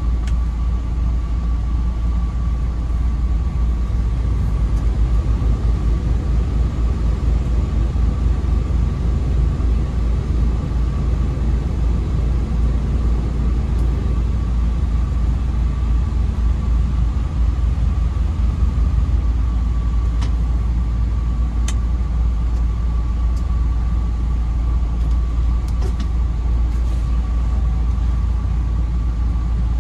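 Semi-truck's diesel engine running steadily, heard from inside the cab as the tractor rolls slowly, a constant low rumble with a thin steady high hum over it. A few light clicks come in the second half.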